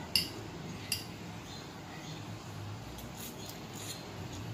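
A metal fork clinking against a glass noodle bowl, twice sharply near the start as the noodles are twirled. Fainter clicks and eating noises follow near the end as a forkful of noodles is slurped, over a steady low hum.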